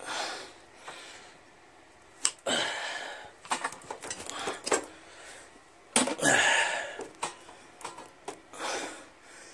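Hand-held bolt cutters biting through heavy-gauge insulated electrical cable: several sharp clicks and snaps, with stretches of hissing, rustling noise between them.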